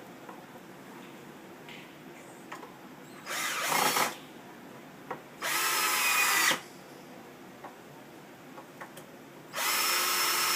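Power screwdriver driving screws, in three short runs of about a second each with pauses between.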